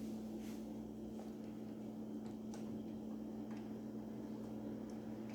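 A steady low electrical or mechanical hum, with a few faint clicks.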